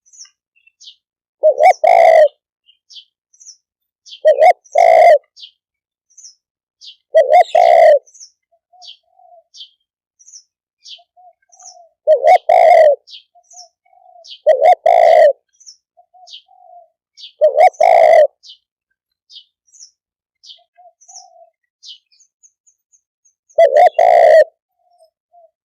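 Spotted dove cooing: seven loud coo phrases a few seconds apart, each of two or three quick notes. Faint high chirps of small birds run between the phrases.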